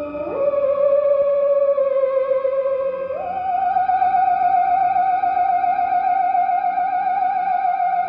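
Eerie theremin-style melody with a wide wavering vibrato, gliding up to a new held note twice, over sustained keyboard chords: sci-fi credits music.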